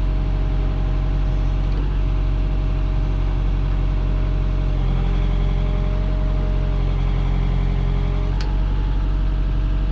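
JCB 3CX Compact backhoe's diesel engine running steadily, with a faint whine whose pitch shifts about five seconds in and again near the end.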